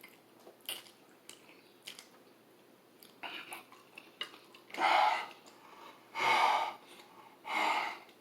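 A person eating very spicy noodles and chicken: soft chewing and small mouth clicks, then three loud breathy huffs about a second and a half apart, as the mouth pants against the heat of the spice.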